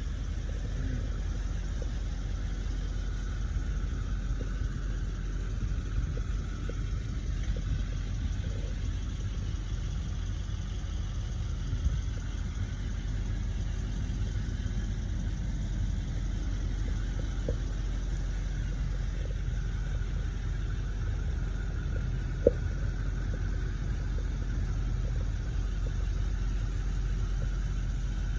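Duramax LBZ 6.6-litre V8 turbodiesel idling steadily in a Chevy Silverado 3500 dually, a constant low rumble. Two sharp clicks stand out, the louder one about three quarters of the way through.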